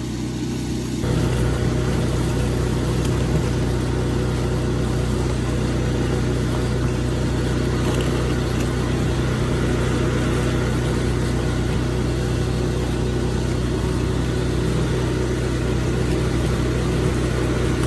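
Pressure-washer engine running steadily while a surface cleaner sprays water over stamped concrete, washing off solvent stripper to remove the old clear coat. The sound steps up louder and fuller about a second in, then holds steady.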